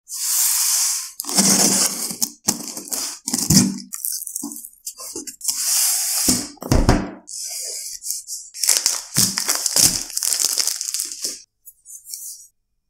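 Plastic shrink wrap on a smartphone box being torn and crumpled off by hand, in repeated bursts of crinkling, with a few knocks of the box being handled. It stops shortly before the end.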